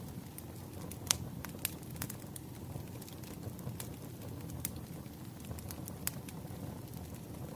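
Wood fire burning: a steady low rumble with scattered sharp crackles and pops, the loudest about a second in.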